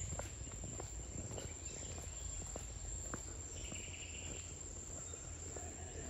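Insects singing in a steady, high-pitched continuous drone, with a brief lower buzz joining about halfway and a low rumble underneath.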